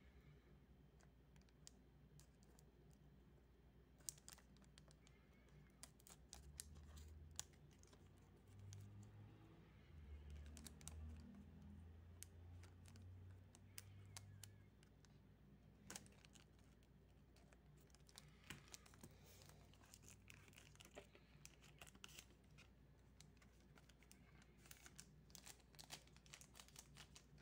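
Faint crinkling and tearing of a Magic: The Gathering booster pack wrapper being handled and opened, in scattered short crackles and clicks.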